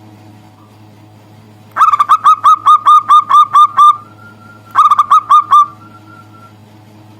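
Zebra dove (perkutut) cooing a territorial song aimed at a rival: a fast run of about a dozen clipped, ringing notes, then after a short pause a shorter run of about five.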